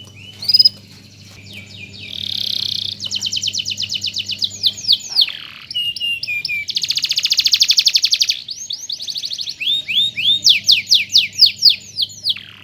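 Domestic canary singing in full voice: long rolls of rapid repeated notes alternating with sweeping glides and short whistled phrases, in a continuous song.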